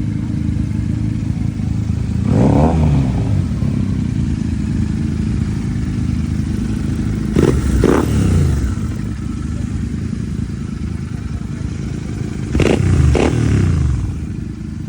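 Royal Enfield Continental GT 650's 648 cc parallel-twin idling through a Red Rooster aftermarket exhaust with its dB killer fitted. It is blipped once about two seconds in, twice in quick succession around seven to eight seconds, and twice again near the end, each rev rising and falling quickly back to idle.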